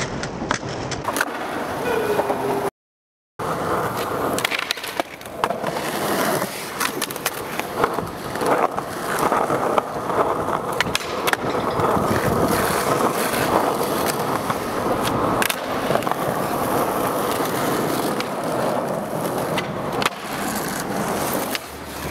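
Skateboard wheels rolling on concrete, with sharp clacks of the board popping and landing scattered throughout. The sound drops out completely for about half a second near three seconds in.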